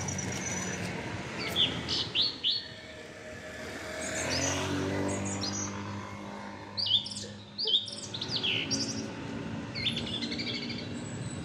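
Small birds chirping in short, quick calls that fall in pitch, coming in clusters, with a vehicle engine passing by in the middle.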